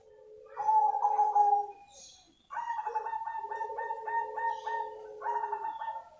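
Perkutut cemani, a black zebra dove, cooing: a short phrase about half a second in, then after a brief pause a longer phrase of quick, rippling repeated notes.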